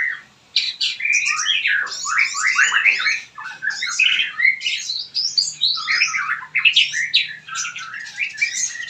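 Several small birds chirping and twittering together in dense, overlapping calls, after a brief gap about half a second in.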